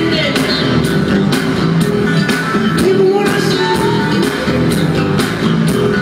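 Live band playing, with drums keeping a steady beat about twice a second under keyboards, and a man singing lead into a microphone, heard from the audience.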